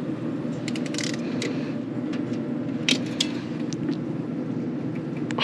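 Sharp clicks of a hand crimping tool and wire connector being handled, several about a second in and two more around three seconds in, over a steady low machine hum.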